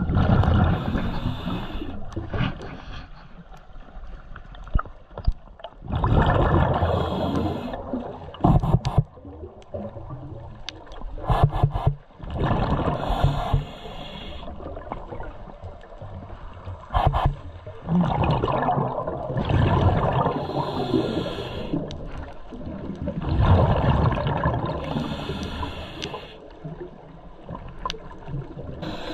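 Scuba regulator breathing underwater: about five exhalations, roughly every five to six seconds, each a two-to-three-second rush of bubbling, with quieter stretches between.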